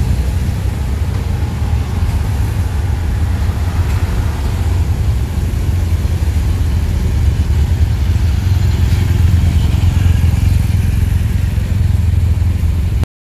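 A motorcade of cars and escort motorcycles driving past, engines running and tyres on the road, making a steady low rumble.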